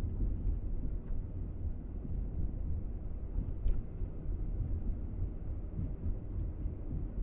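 Steady low rumble of a moving vehicle on the road, with a faint click about three and a half seconds in.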